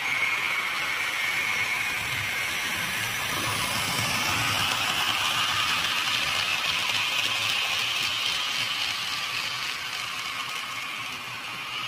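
HO scale model train running on the layout's track: a steady hum and rattle of the small motor and wheels on the rails, growing louder through the middle and easing off toward the end.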